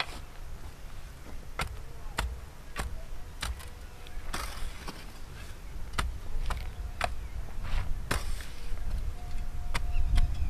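A hand tool chopping into dry ground in sharp, separate strikes at irregular spacing, roughly every half second to a second, over a low rumble of wind on the microphone.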